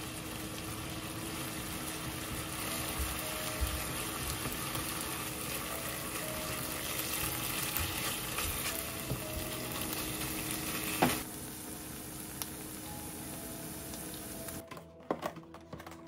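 Ground pork and chopped leek sizzling in a frying pan while a spatula stirs and scrapes through the mince. The sizzle stops about 11 seconds in with a sharp knock, and near the end plastic food containers clack lightly on the counter.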